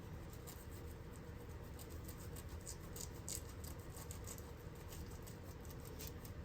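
Ground beef frying in hot grease in a pan: a faint sizzle with scattered crackles and pops, thickest about halfway through.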